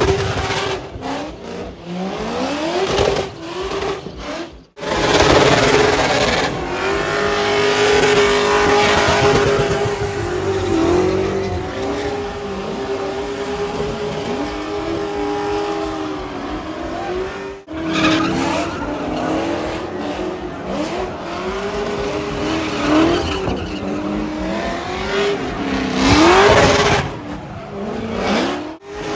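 Car engines held at high revs while the tyres squeal through burnouts and slides, the engine note rising and dipping as the throttle is worked. The sound cuts off abruptly and starts again about 5 and 18 seconds in.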